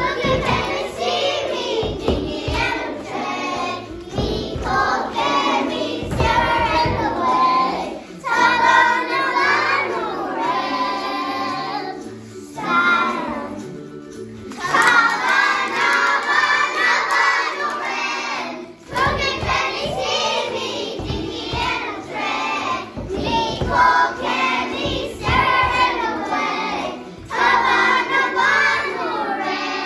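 A group of young children singing a song together in chorus, with a short break in the singing a little before halfway.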